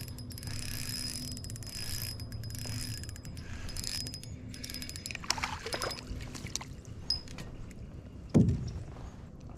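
Spinning reel being cranked as a hooked bluegill is reeled in, a fast run of fine clicks with a thin high whir, then a few irregular knocks and a brief louder thump about eight seconds in.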